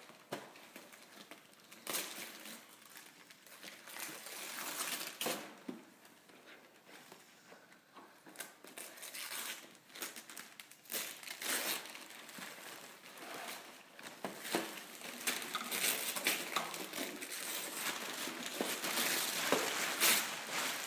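Gift wrapping paper being torn and crumpled as a present is unwrapped, with tissue paper crinkling in the box. Scattered crackles at first, turning into denser, louder rustling and tearing in the last third.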